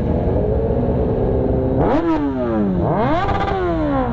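Idling superbike engine revved twice with the bike standing still: a quick blip about two seconds in, then a longer rev held briefly and falling back to idle near the end.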